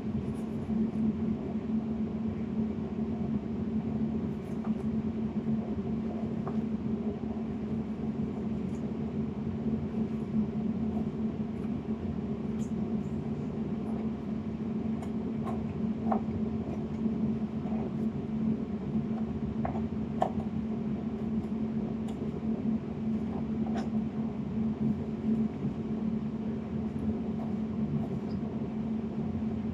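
A steady low mechanical hum, with faint, irregular taps of a knife on a wooden cutting board as a tomato is sliced.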